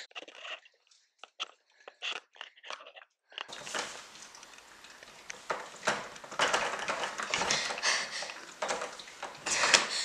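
A girl's quick, ragged breaths and sniffles, heard as short sharp bursts. From about three and a half seconds in they sit over a steady hiss, with rustling and a few clicks.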